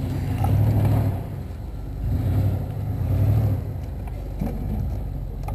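The 1996 Jeep Grand Cherokee ZJ's 5.2-litre V8 revving up and easing off several times, working hard under load as the Jeep claws its way up a loose sand slope.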